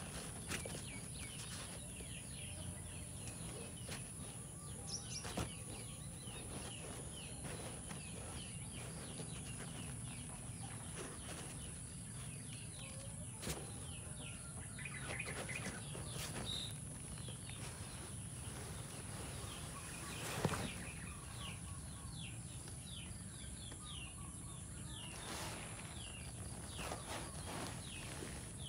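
Small birds chirping over and over in short falling calls, over a steady high whine and a low hum. Soft rustles and clicks come from a kitten clambering on a netted hammock, with one sharper knock about twenty seconds in.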